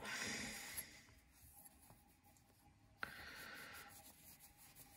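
A cloth being rubbed over the M390 steel blade of a QSP Legatus folding knife to wipe it down. Two short, faint bouts of rubbing: one at the very start, another about three seconds in.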